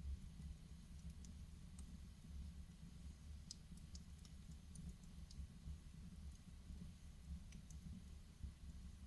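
Wood fire burning in a fireplace: faint scattered crackles and snaps, several close together around the middle, over a low steady rumble of the flames.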